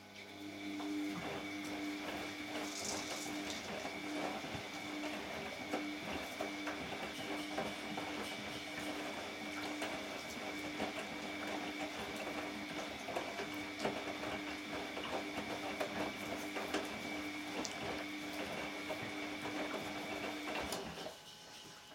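A machine running, with a steady high whine and a low hum that pulses on and off at an even pace; it cuts off suddenly near the end.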